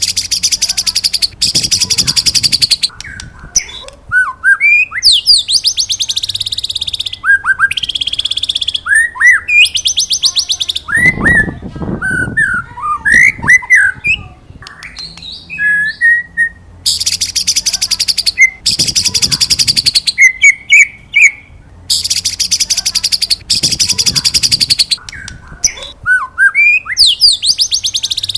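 White-rumped shama (murai batu) singing: short upslurred 'wit wit' whistles alternating with long, fast buzzing 'cerrr' trills of one to two seconds each.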